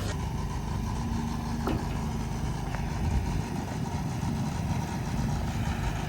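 A motor vehicle engine idling steadily, with a couple of faint clicks about two and three seconds in.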